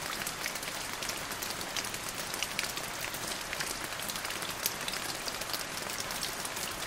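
Steady rain falling on a waterlogged lawn and puddles, an even hiss dotted with many small raindrop ticks.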